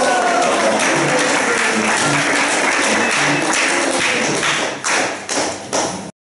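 Audience applauding, thinning to a few separate claps near the end before the sound cuts off suddenly.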